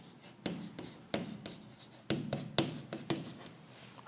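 Chalk writing on a chalkboard: a series of short scratching strokes and taps, about half a dozen separate ones, as a word is written in capital letters.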